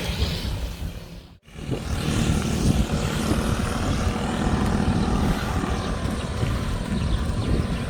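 Wind buffeting the microphone outdoors: a steady, gusty low rumble with hiss above. It cuts out briefly about a second and a half in.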